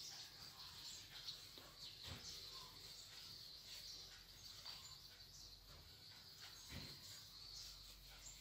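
Near silence: a faint steady high hiss, with a few faint short chirps and a couple of soft knocks.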